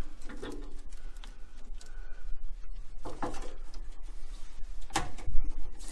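Handling noise of gloved hands working a drain hose and its clamp off the condensate neutralizer inside a Noritz tankless water heater: scattered clicks and knocks of plastic and metal, the sharpest about five seconds in. A low steady hum runs underneath.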